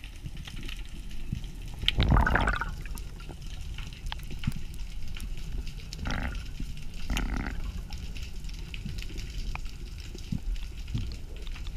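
Underwater sound through a camera housing: a constant crackle of fine clicks over a low rumble, with a loud gurgle of bubbles about two seconds in and two shorter gurgles around six and seven seconds.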